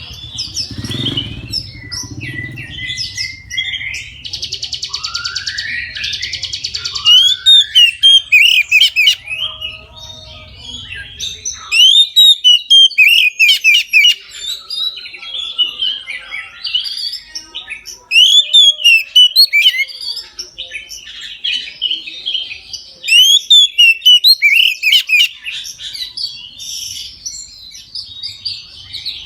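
Oriental magpie-robin in full, continuous song: loud, rapid, varied whistled phrases, with a buzzy trill about five seconds in. A low hum sits under the first dozen seconds.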